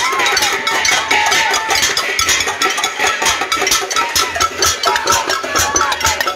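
Pots and pans being beaten in a casserole protest: fast, irregular metallic clanging of many strikes a second that keeps going without a break, with voices calling over it.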